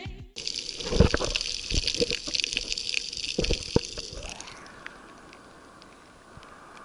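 Water sloshing and gurgling against an action camera held at the sea surface, with several sharp knocks and splashes in the first four seconds. After about four seconds it drops to a soft, fading hiss.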